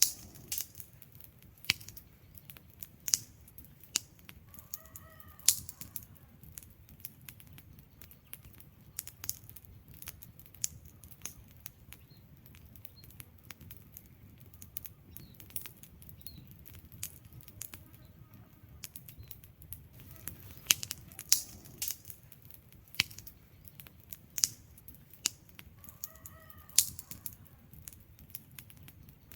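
Wood fire of burning logs crackling, with irregular sharp pops and snaps, several a second, over a low steady rumble of the flames.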